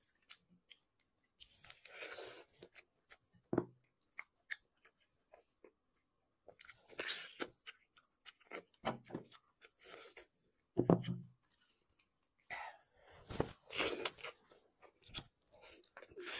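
Chewing and mouth sounds of someone eating braised beef trotter tendon, in irregular bursts with small clicks between them.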